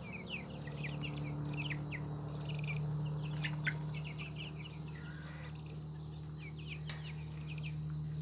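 A flock of young meat chickens peeping, many short high chirps overlapping, over a steady low hum.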